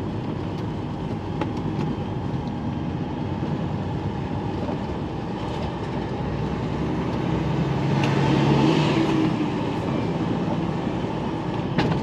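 Lorry's diesel engine and tyre noise heard inside the cab while driving slowly, swelling about eight seconds in, with a few sharp knocks near the end.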